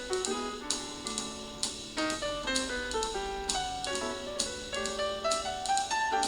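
Light jazz background music: a melody of short stepping notes over a drum beat with cymbal strikes.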